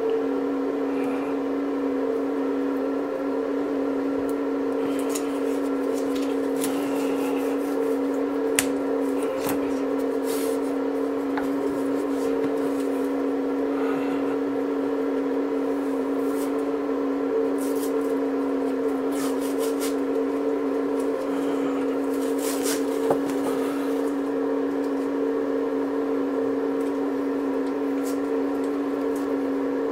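A steady machine hum with two held tones, over which come short rustles and light taps as thin wooden louvre door pieces and tape are handled, with a sharp click about a third of the way in and another about three quarters of the way in.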